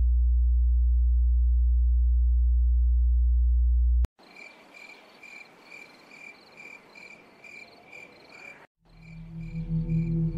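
A steady low hum for about four seconds that cuts off abruptly, then crickets chirping in even pulses about twice a second. About nine seconds in, a low ambient music drone swells in under the chirping.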